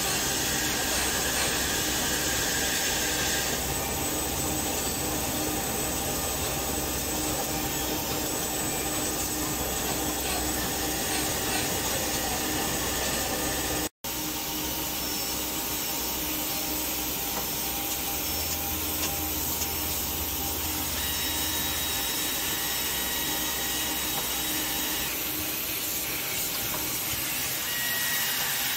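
Automated motor armature production machinery running steadily: a continuous mechanical whirr and hiss with a few faint steady whines. The sound cuts out for an instant about halfway through.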